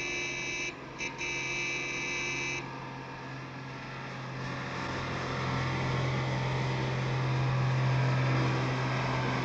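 A vehicle horn blares in long blasts, broken by a short gap, through the first two and a half seconds, over a steady engine drone from the chasing cars and coach that grows louder from about halfway.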